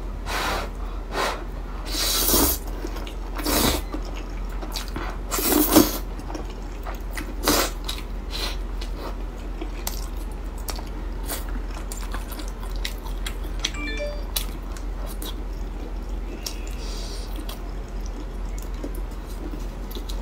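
Close-miked eating of a steamed bun with braised pork and glass noodles: several loud, wet bites and slurps in the first eight seconds, then quieter chewing and small mouth clicks.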